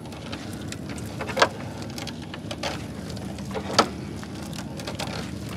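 Wet gill net being hauled by hand into a wooden boat, with water dripping and pattering off the mesh. Two brief, sharper splashes or knocks come about one and a half and four seconds in.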